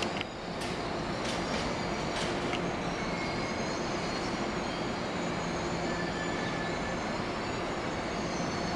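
A passenger train rolls away along the station tracks with a steady running noise. There are a few sharp clicks over rail joints and switches in the first couple of seconds, and brief thin wheel squeals later on.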